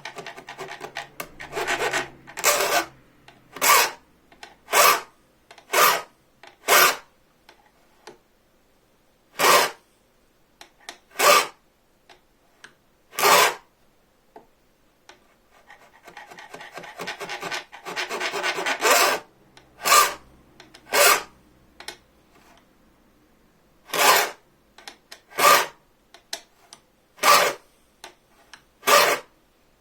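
Hand file cutting tooth notches into a bow-saw blade, single rasping push strokes about a second apart in groups with pauses between. Twice there is a quick run of short scratchy strokes, at the start and about two thirds of the way in.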